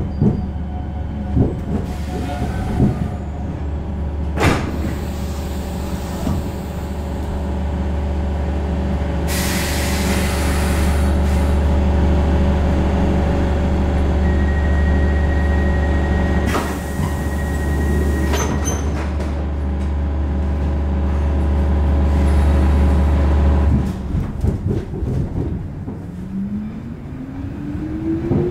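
Stockholm Metro C6 subway car standing at a station platform: a steady low hum, bursts of air hiss, a few knocks and a long high beep. About four seconds before the end the hum stops, and a motor whine then starts rising steadily in pitch as the train sets off.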